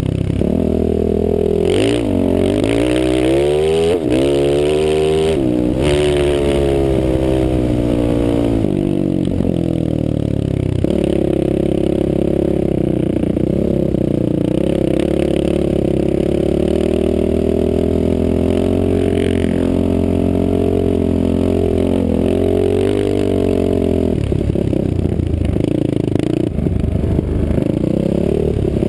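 Off-road vehicle engine under way, its revs rising and falling sharply with the throttle for the first several seconds, then holding a steadier pitch with smaller swells.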